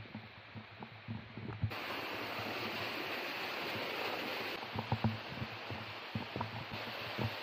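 Running water of a mountain stream and waterfall, a steady rushing hiss that jumps louder about two seconds in, with irregular low thumps throughout.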